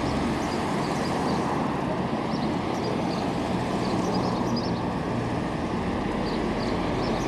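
Steady town road-traffic noise, an even rumble and hiss of vehicles with no single event standing out.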